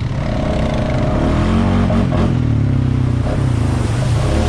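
Honda Foreman ATV's single-cylinder four-stroke engine running while riding, its note dipping and rising again with the throttle.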